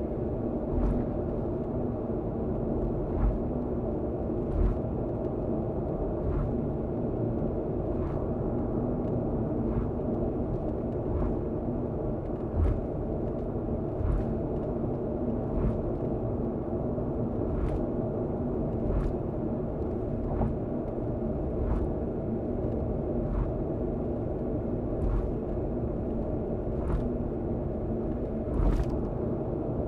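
Car cruising on an elevated expressway, heard inside the cabin: a steady road rumble and drivetrain hum, with short thumps every second or two as the tyres cross the road's expansion joints.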